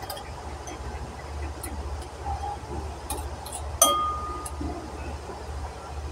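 Metal spoon stirring a thin sauce in a ceramic bowl, clinking against the bowl a few times, with one sharp ringing clink about four seconds in. A low steady hum runs underneath.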